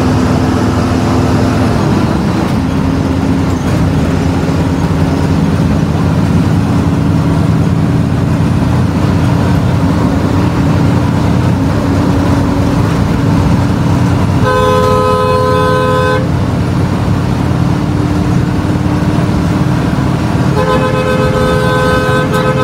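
Intercity bus engine running steadily at speed, heard from inside the driver's cab. The bus horn sounds two long blasts, a steady chord of several tones: one lasting under two seconds about two-thirds of the way in, and another starting near the end.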